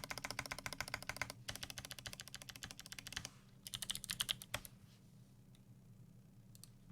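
Fast typing on a custom Melody96 mechanical keyboard with lubed Kailh Speed Bronze clicky switches on an aluminium plate with PBT keycaps, a rapid run of keystrokes. A short pause is followed by a second burst with a few heavier strokes, then the typing stops after about four and a half seconds, leaving only a few faint clicks near the end.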